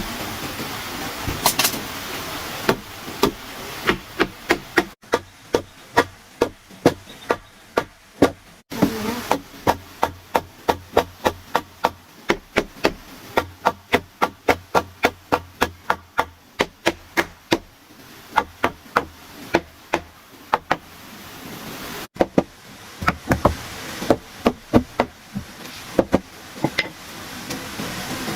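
Repeated sharp blows of a hand tool striking, about two a second, in runs broken by short pauses, typical of hammering on the wooden frame of a house being built.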